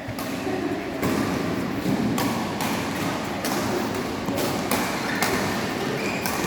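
Badminton rally: a series of sharp racket strikes on a shuttlecock, roughly one a second at irregular spacing, over steady background noise.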